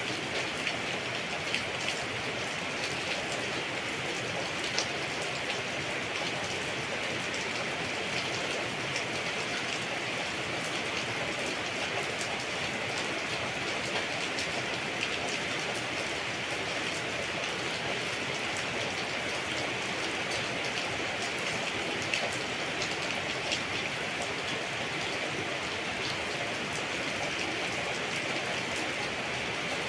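Steady rainfall, an even hiss with many individual drops ticking sharply against it.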